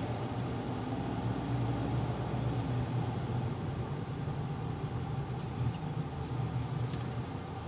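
Car engine and tyre noise heard from inside the cabin as the car drives slowly, a steady low hum that gets quieter near the end.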